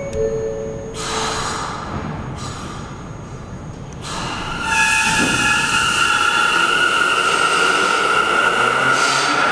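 A short falling two-note chime at the start, typical of an R179 subway car's door chime, then a burst of noise about a second in. From about four to five seconds in, the R179 train's traction motors start a loud steady whine of several tones over rolling noise as the train pulls out of the station.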